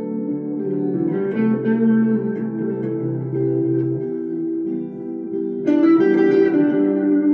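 Hollow-body electric guitar playing sustained chords over a held low bass note, with a louder, brighter chord struck near the end.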